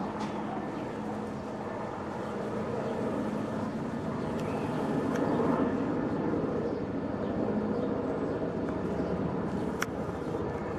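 Helicopter flying overhead, a steady engine and rotor drone that grows a little louder about halfway through.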